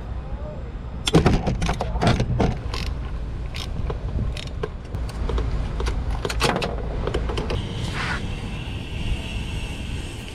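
Irregular metallic clicks and clinks of a socket wrench on a long extension working the nut of the starter ground cable, loudest and densest in the first few seconds. A faint steady high whine comes in near the end.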